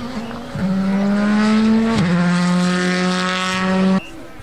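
Rally car engine under hard acceleration, its pitch climbing between two upshifts, about half a second and two seconds in. The sound cuts off abruptly near the end.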